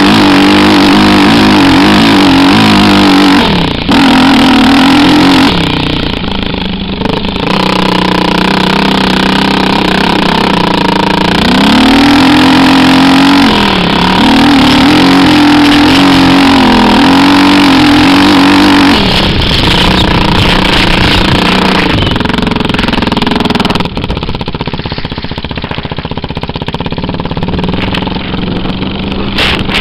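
Suzuki LT-R450 QuadRacer's 450 cc single-cylinder four-stroke engine running hard under throttle, its note dipping briefly about 4 s and 13 s in as the throttle is eased. Later the engine note drops back and fades under a steady rushing noise near the end.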